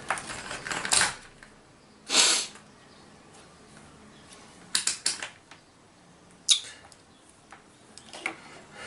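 Scattered small clicks, taps and rustles from multimeter probes and a headphone cable being handled, with no continuity beep sounding, consistent with a broken ground (shield) wire.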